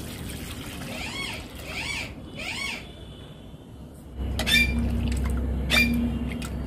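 Milk poured into an aluminium kadai, then a steel ladle stirring it and clicking against the pan about every second, over a low steady rumble that starts about four seconds in. A bird calls three times in the first half.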